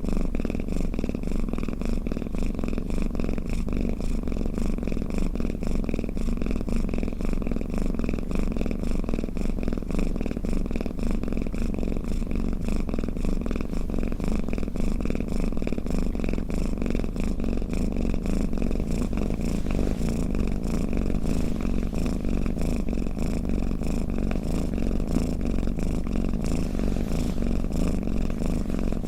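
Domestic cat purring steadily and continuously.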